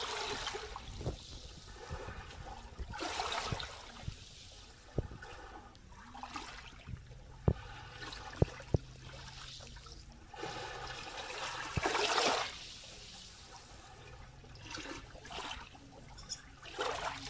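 Small waves lapping and washing up over sand at the water's edge, each wash swelling and fading over a second or two and recurring every few seconds. Between the washes come a few sharp clicks, three of them close together a little before the middle, which are the loudest sounds.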